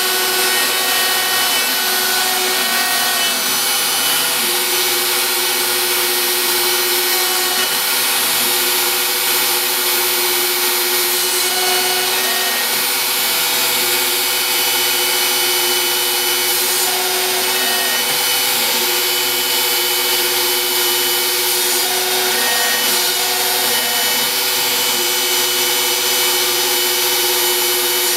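Router spindle on a home-built CNC machine running steadily while its bit cuts into MDF, a constant loud cutting noise with a steady hum. Short rising-and-falling whines come and go over it as the stepper-driven axes change speed.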